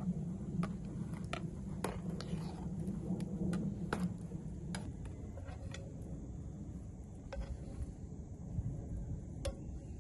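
A metal utensil clinking and scraping against metal camp cookware, a string of sharp separate clinks, while food is stirred and moved in the pot. A low steady rumble underneath fades out about four seconds in.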